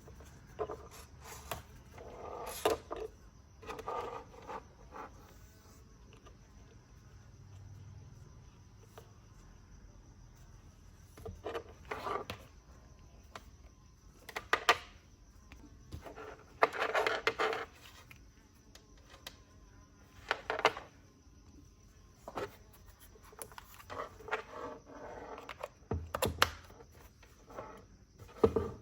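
Irregular handling noises: short clicks, taps and brief rubbing of small parts and tools being worked by hand, over a faint steady high whine.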